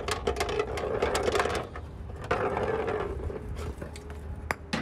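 A golf ball rattling down inside a rain downspout: a rapid clatter of small knocks that breaks off briefly about two seconds in, resumes, then gives way to a couple of sharper single knocks near the end.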